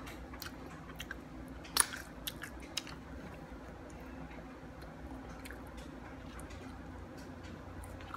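Biting and chewing a chicken nugget close to the microphone: scattered small mouth clicks, the loudest about two seconds in, over a low steady hum.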